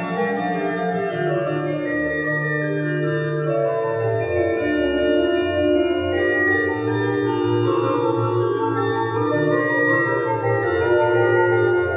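Slow instrumental music with long held chords that change every second or two, played back through loudspeakers driven by a home-built amplifier with four paralleled LM3886 chips.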